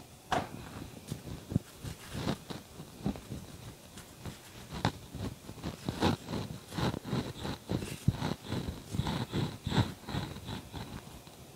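A spoon spreading butter over a paratha on a nonstick tawa: soft, irregular scraping and dabbing strokes that come thicker in the second half. About half a second in there is a soft slap as the flipped paratha lands on the pan.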